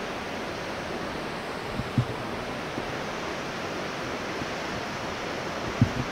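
Steady rushing wind noise on an open outdoor microphone, with two brief dull bumps, about two seconds in and near the end.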